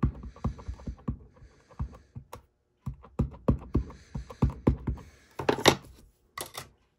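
An ink pad's plastic case tapped again and again onto a rubber stamp on a clear acrylic block to ink it, about three or four quick taps a second, with a short pause near the middle. Near the end come a louder scrape and two sharp knocks.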